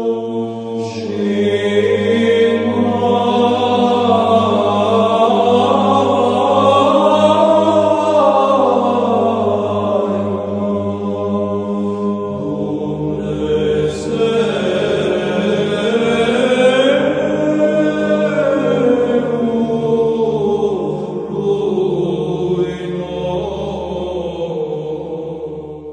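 Background music: slow chanted singing over a held low drone, the drone dropping to a lower note about twelve seconds in. The music fades out at the end.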